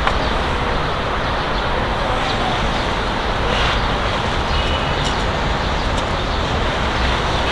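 Steady outdoor background noise of distant city traffic, a low rumble and hiss, with a few faint ticks.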